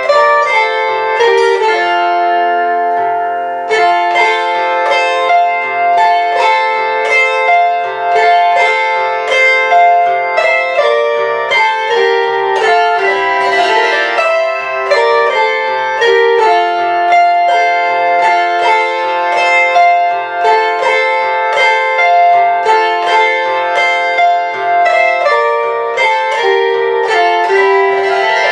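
Double-strung Lithuanian kanklės made in 1940, plucked by hand: a waltz tune of quick plucked notes that ring on over each other, with a lower accompaniment beneath.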